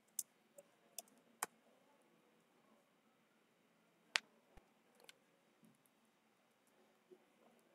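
A few separate computer mouse and keyboard clicks, the loudest about four seconds in, with near silence between them.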